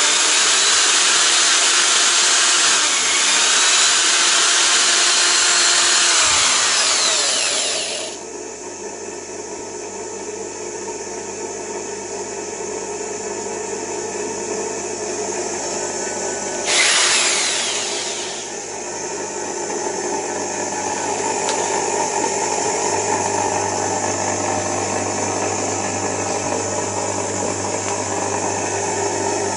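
Stern 550 W corded electric drill running at speed for about eight seconds and cutting off, then running again briefly for a second or so after a pause. A steadier, quieter mechanical hum carries on between and after the bursts.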